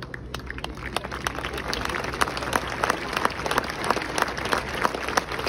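Crowd of spectators applauding: scattered claps at first, building within the first couple of seconds into steady, dense clapping.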